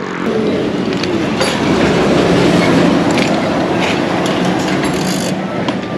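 A heavy vehicle passing on the road close by, its rumble swelling to a peak around the middle and easing off. A few light metallic clicks sound over it.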